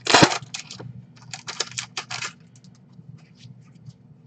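Trading-card pack wrapper being torn open, a loud crinkling rip at the start, then a run of light clicks and rustles as the stack of cards is handled, fading to faint ticks.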